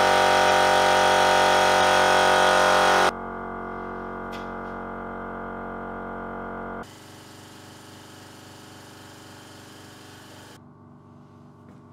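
Four back-to-back recordings of electric air compressors running steadily, cut sharply from one to the next, each quieter than the last. They are a very noisy old compressor and a quieter new one, each heard in the open and inside a sound-insulated enclosure.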